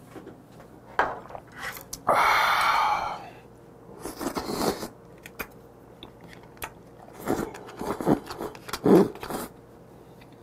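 Close-miked eating sounds: a long breathy exhale about two seconds in, then wet sucking, slurping and chewing as crab meat is eaten out of the shell, with a few light clicks of chopsticks on the shell.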